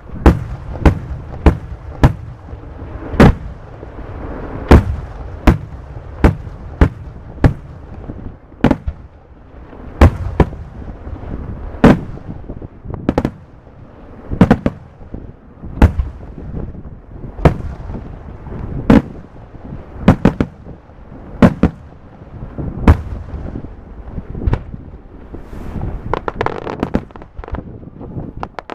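Fireworks display: aerial shells bursting in a long series of sharp bangs, about one or two a second, over a continuous rumble.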